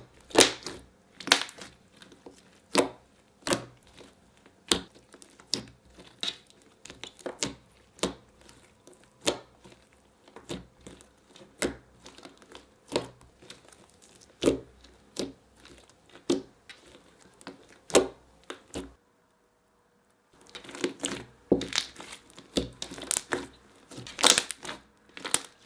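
Glossy slime with foam beads mixed in being poked and pressed, giving a run of sharp clicks and bubble pops, about one or two a second, with a brief silent break about three quarters of the way through.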